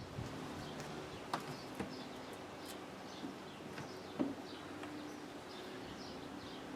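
Quiet background with faint, scattered bird chirps, a low steady hum and a few light clicks.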